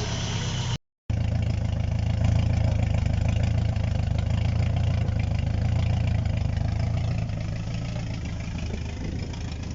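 Opel Corsa B GSI 1.6-litre 16-valve four-cylinder engine idling steadily, freshly rebuilt and warming up to about 90 °C. The sound cuts out completely for a moment about a second in.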